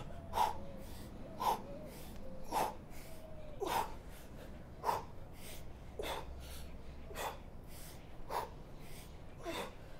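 A man's breathing under exertion during an ab exercise: short, sharp exhales about once a second, some with a faint grunt.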